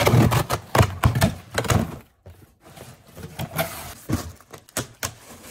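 Cardboard shipping box being cut open and handled: a blade drawn along the packing tape, then cardboard flaps scraping, knocking and thumping as the box is pulled open. The heaviest thumps come in the first two seconds, with lighter clicks and rustling after.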